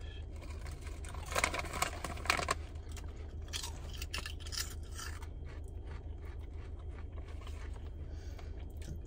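Bugles corn snacks being bitten and chewed with crunching, a dense run of crunches about a second and a half in and scattered softer ones after, over a steady low hum.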